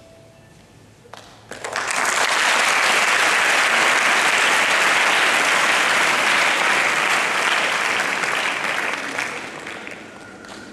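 Audience of students applauding: a couple of early claps, then full applause from about a second and a half in that holds steady and dies away near the end.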